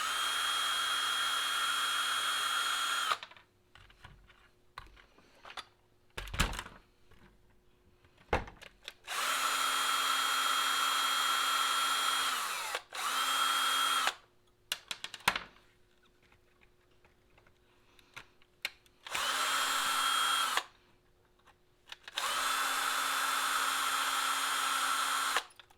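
Cordless electric screwdriver running in five short bursts of one to three seconds each, with a steady whine that stops sharply or winds down briefly. It is backing screws out to remove the wheelie bar from an RC truck. Small clicks and handling knocks come between the bursts.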